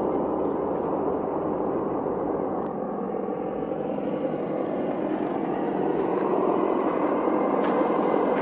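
Simulated engine sound from a Reely sound module, played through the small speaker of a Traxxas TRX-4 RC crawler as it drives, mixed with the whir of its electric drivetrain. It runs steadily, and from about six seconds in a few short, sharp clicks join it.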